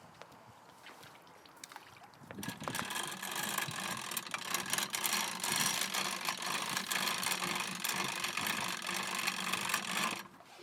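A motor running steadily, starting about two seconds in and cutting off near the end, with several steady tones over a wide hiss.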